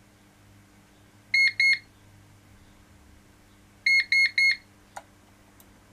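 Electronic beeper of a Daystate Air Wolf MCT air rifle counting through its program stages. It gives two short high beeps about a second and a half in, then three quick beeps near four seconds, the signal for stage three, the active pressure display. A light click follows about a second later.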